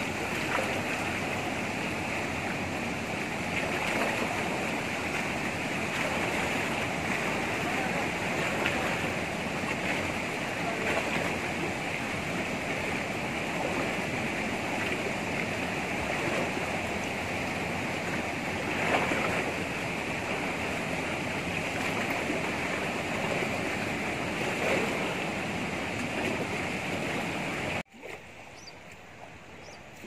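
Fast-flowing river water rushing in a steady, loud wash, cutting off suddenly near the end to a quieter rush of water.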